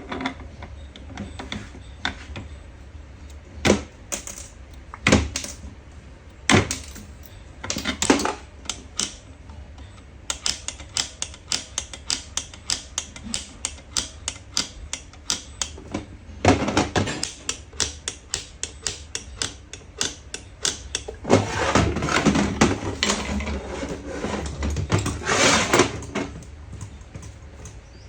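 Metal parts and hand tools being handled on a workbench during diesel injector repair: scattered sharp clicks and knocks, then a steady run of about four clicks a second, and a busier stretch of rattling and clatter near the end.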